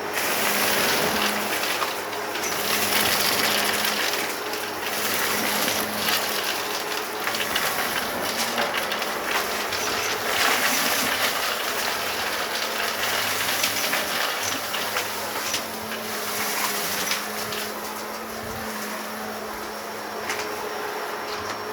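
Vacuum cleaner running over a rug and sucking up sand, with grit crackling and ticking through it; the motor's hum swells and dips as it is pushed back and forth.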